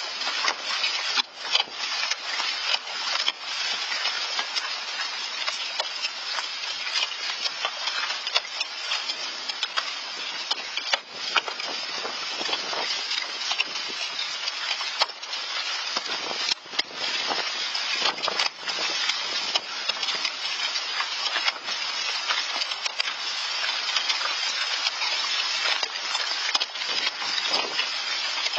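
Hailstorm: hailstones pelting down in a dense, steady hiss packed with countless sharp clicking impacts, heard through a Nest security camera's microphone.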